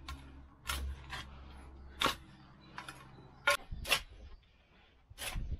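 Garden spade digging over loose soil: short scrapes and crunches as the blade cuts in, about six times at irregular intervals.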